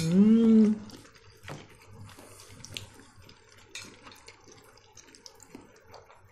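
A short hummed "mmm" whose pitch rises and falls, then quiet clinks of dishes and water dripping and splashing as boiled pelmeni are dished out of their cooking water.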